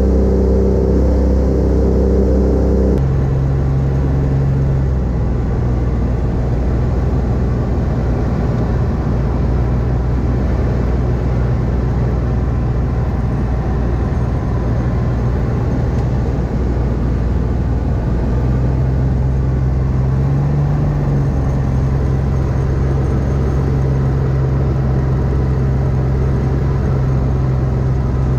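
Rotax 582 two-stroke engine and propeller of an X-Air microlight droning steadily in cruise flight, heard from inside the cockpit. The engine note changes abruptly about three seconds in.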